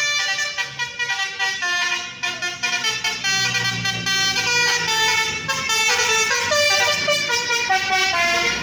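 An Indonesian bus's basuri 'telolet' multi-tone horn playing a fast melody of stepped horn notes that change pitch several times a second, with a bus engine's low rumble underneath around the middle.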